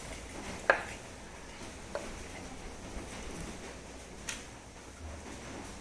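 A few separate light clicks and taps from handling kitchen things, the sharpest a little under a second in and three fainter ones spread over the next few seconds, over a low room hum.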